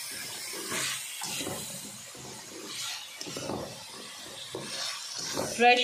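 Chicken and vegetables sizzling as they are stir-fried in a wok, with a spatula irregularly scraping and tossing them against the pan.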